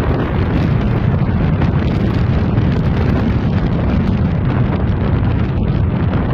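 Loud, steady wind buffeting the microphone in a Ford Mustang convertible driven fast, with the car's road and engine noise underneath.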